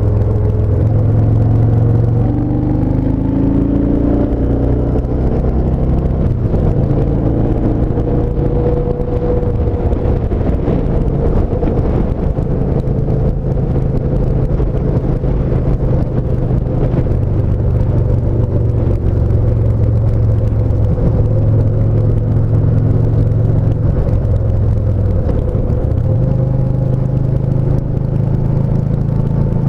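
Yamaha SCR950's air-cooled V-twin engine running steadily under way at road speed. Near the end the engine note drops briefly and then picks back up.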